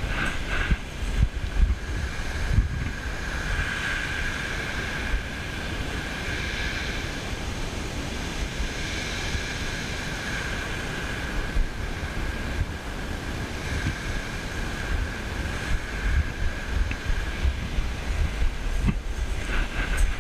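Wind buffeting the microphone over the steady wash of small waves breaking on a shingle beach.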